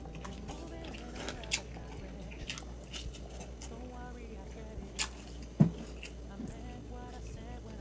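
A person eating close to the microphone: chewing with scattered small clicks, and one louder knock about five and a half seconds in.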